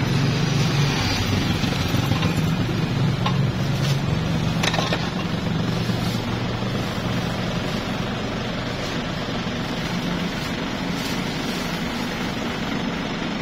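Rear-loading garbage truck's engine running steadily at idle, a low even hum, with a couple of short knocks about four to five seconds in as rubbish is loaded.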